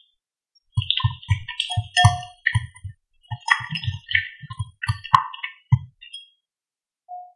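Wire whisk stirring mashed banana and oil in a glass mixing bowl, striking the glass with a quick, irregular run of clinks and dull knocks, about four a second, broken by two short pauses.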